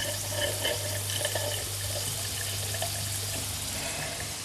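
Steam hissing with a watery gurgle as it is let through the Märklin 16051 toy steam engine's boiler valve into the engine, before the engine starts turning.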